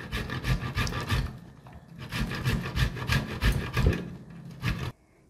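Fresh coconut meat grated by hand on a stainless-steel box grater: quick repeated rasping strokes, with a brief lull about a second and a half in, cutting off suddenly just before the end.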